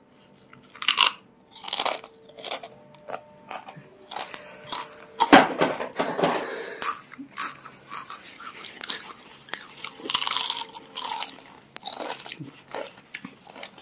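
Crisp, spicy Jolochip chips being bitten and chewed close to the microphone: irregular crunches, some loud and some soft.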